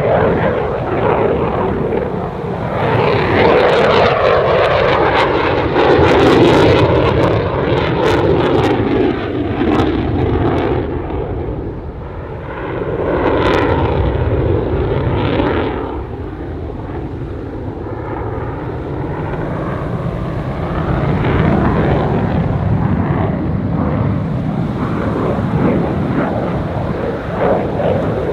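RAF Eurofighter Typhoon's twin Eurojet EJ200 jet engines running with afterburners lit through a display manoeuvre: a loud, continuous jet rumble that swells and fades as the aircraft turns and passes, its pitch sweeping as it goes. Crackle rides on top at its loudest, a few seconds in.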